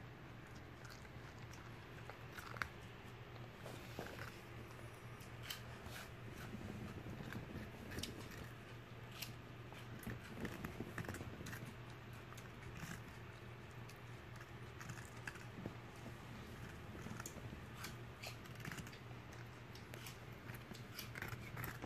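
Poodle chewing raw cucumber: faint, irregular wet crunches and clicks of its teeth biting through the cucumber.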